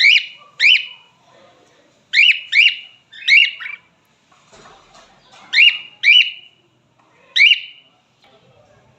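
Male cockatiel calling: short, sharp whistled notes that sweep up and then hold, about eight of them, often in quick pairs.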